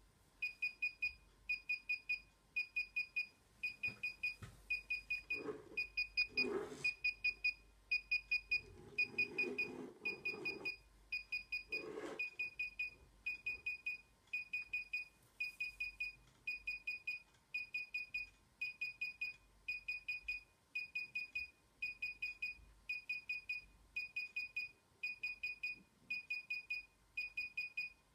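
DJI Inspire 1 remote controller beeping steadily while its firmware installs: short trills of rapid high pips, about three trills every two seconds. Some dull handling or rustling noises come between about four and twelve seconds in.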